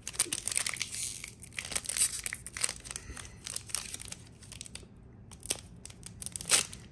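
Foil wrapper of a Pokémon booster pack crinkling and tearing as it is opened: a dense crackle for the first four seconds or so, then scattered sharp crinkles.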